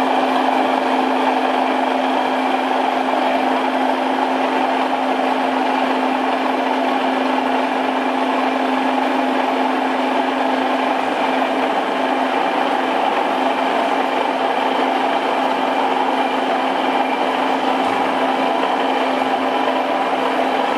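Milling machine's powered vertical feed raising the table: a steady motor hum with a constant tone that starts and stops abruptly.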